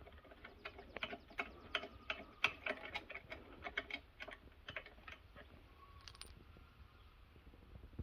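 Ratchet wrench with a short 14 mm socket clicking in quick, uneven strokes as the loosened top bolt of a mini bike fork tube is turned out; the clicks stop about five seconds in, with a few more about six seconds in.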